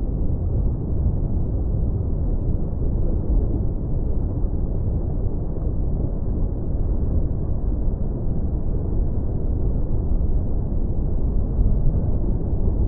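Tropical beach ambience: a steady, deep rumble of surf, muffled, with no high end and no separate wave breaks.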